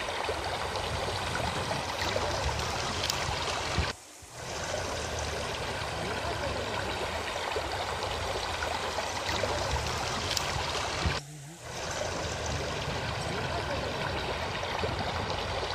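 Shallow river running over gravel and stones, a steady rush of water that cuts out briefly twice, about four and eleven seconds in.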